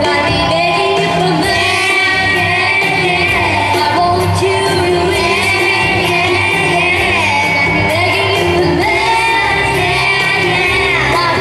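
Girls singing a pop song into handheld microphones over a backing track with a steady beat, amplified through a PA in a large hall.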